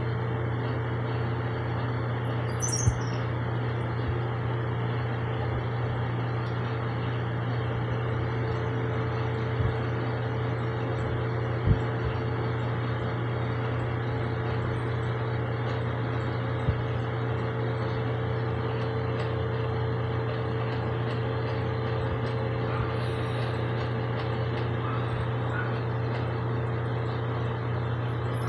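A steady low mechanical hum, like an idling engine, with a few light knocks and a couple of brief high bird chirps, one about three seconds in and one near the end.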